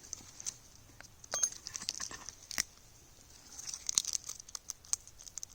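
Irregular crisp crackling and snapping clicks of small dry fat wood and kindling being handled and broken for a fire lay.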